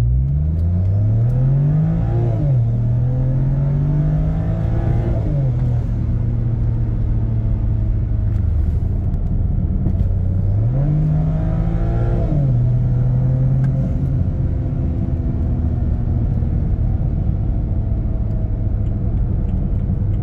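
BMW 335i's N54 twin-turbo 3.0 L straight-six accelerating hard, heard from inside the cabin. Its pitch rises through three pulls, each ending in a sudden drop at an upshift, with a steadier stretch between the second and third.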